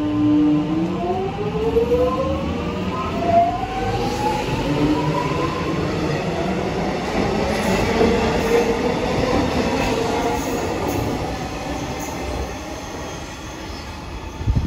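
Melbourne Metro electric suburban train pulling away from the platform: its traction motors whine in several tones that rise together over the first few seconds as it accelerates, then give way to steady wheel and rail rumble.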